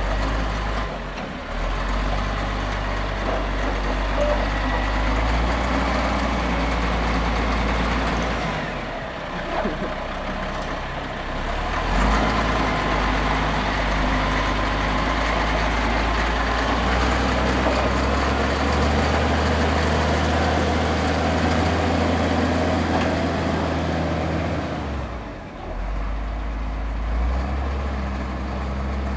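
Diesel engine of an old Caterpillar wheel loader running under load while it drives carrying a car, the engine note dropping and picking up again several times.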